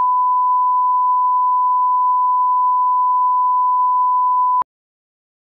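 Steady 1 kHz line-up reference tone, the test tone that goes with colour bars, holding one pitch and then cutting off abruptly near the end.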